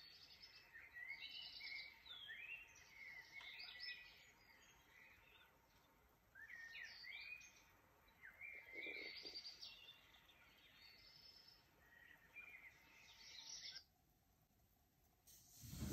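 Birds chirping, a busy string of short, quick chirps that rise and fall in pitch, over a steady hiss. Near the end the chirping and hiss stop, and a short thump follows.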